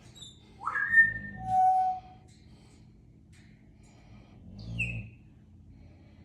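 English bulldog breathing noisily in its sleep, with high squeaky whistles through the nose that rise and fall on each breath: a few snoring breaths a few seconds apart.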